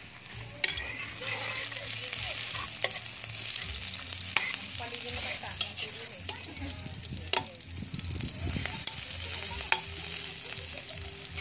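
Sliced onions sizzling in hot oil in a metal wok while they are stirred, the metal spatula scraping and clicking against the pan every second or two.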